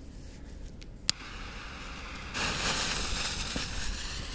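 A firework's fuse burning after it is lit. There is a sharp click about a second in, then a hiss that grows much louder a little past halfway.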